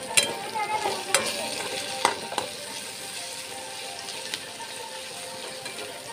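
Sliced bitter gourd and onion frying in a kadai, with a steady sizzle, while a flat spatula stirs and scrapes against the pan, several scrapes in the first couple of seconds.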